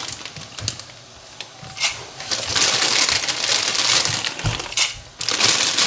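Pot of water at a rolling boil with pasta in it: a steady bubbling hiss with scattered crackles, growing louder after about two seconds and dipping briefly near the end.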